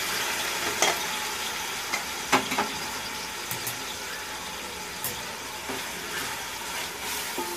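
Boiled mutton pieces sizzling as they fry in hot oil in a large pot, a little louder at first as the meat goes in, with a few knocks of utensils against the pot.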